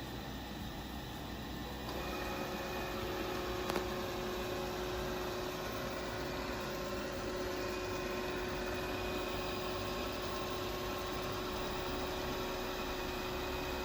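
Roborock E-Series robot vacuum cleaner whirring steadily as it drives back to its charging dock. It grows louder about two seconds in, where a steady hum comes in, and gives a single click a couple of seconds later.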